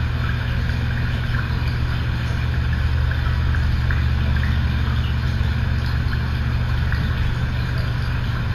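A steady low hum over a background hiss, with a few faint ticks scattered through it.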